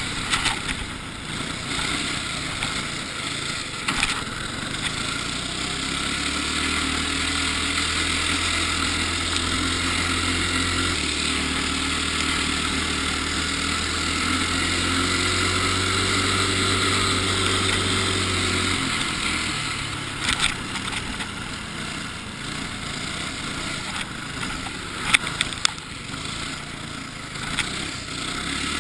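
Ice go-kart engine running under way, heard from the driver's seat, its note shifting as the kart accelerates and lets off, with a steady hiss behind it. Several sharp knocks sound now and then.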